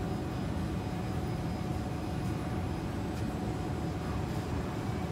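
Steady cabin noise of a Kawasaki C151 MRT train: an even low rumble with a faint steady hum.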